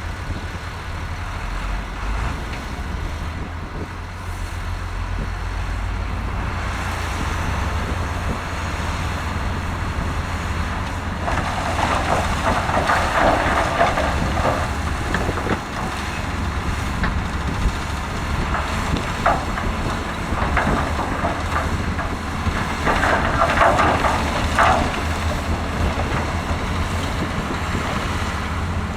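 Heavy diesel earthmoving machinery, a bulldozer and wheel loader, running steadily under load while working rocks and soil. Two stretches of louder rattling noise with sharp clicks come about 12 seconds in and again near 23 seconds.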